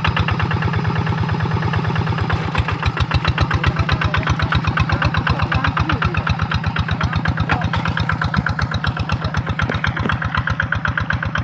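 Hand tractor's engine running steadily, a fast even beat of pulses, as the rice-field plough works.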